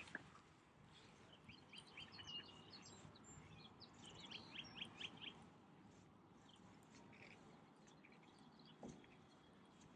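Near silence with a bird's faint short chirps in scattered clusters during the first half. There is a single soft low thump near the end.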